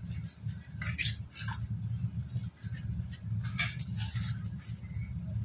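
Fingers crushing and stirring dry slate pencil powder and crumbs in a stainless steel bowl: irregular gritty scratching and crunching, with light clinks against the metal bowl, over a steady low hum.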